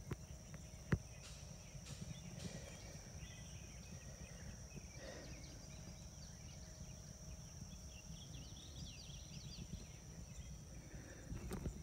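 Quiet outdoor field ambience: a low rumble of wind on the microphone, a steady high-pitched drone and scattered faint chirps, with one sharp click about a second in.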